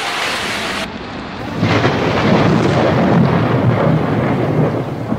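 Muddy flash-flood torrent rushing in a mountain stream, a steady noisy rush of water. The sound dips briefly about a second in, then comes back louder with a heavy low rumble.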